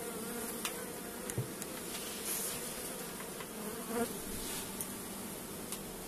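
Honeybees from many colonies in a cassette bee pavilion humming steadily during the spring cleansing flight, with a few bees buzzing past close by now and then. The hum is the sign of strong colonies in full activity after winter.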